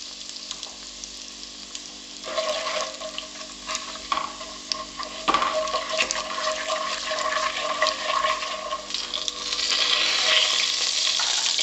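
Whole spices (nigella seeds, radhuni, cumin and asafoetida) sizzling and crackling in hot oil in a non-stick pan while a spatula stirs and scrapes them: the tempering stage of the curry. The sizzle is softer for the first couple of seconds, then grows louder and is strongest near the end.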